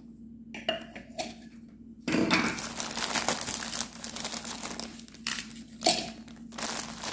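Plastic cookie packaging crinkling while Maria cookies are handled and dropped into a small plastic food-processor bowl, with light clicks and clinks. It starts about two seconds in and comes in irregular rustling spells.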